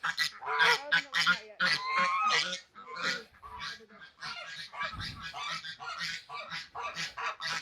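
Domestic waterfowl calling over and over, a run of short overlapping honking calls from several birds, louder in the first few seconds.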